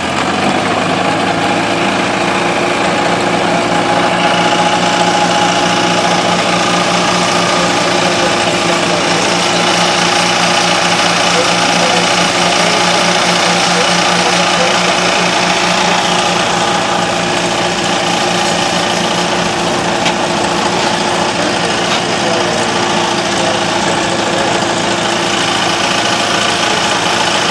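Ferguson TO-20 tractor's four-cylinder engine running steadily at idle, just after starting, the first run after the engine was rebuilt.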